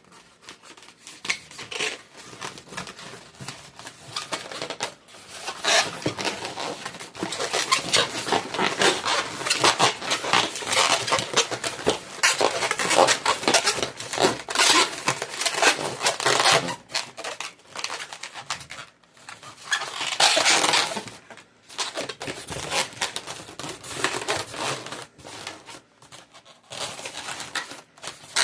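Latex twisting balloons being handled and twisted: a dense, continuous run of rubbing, scratching and clicking noises.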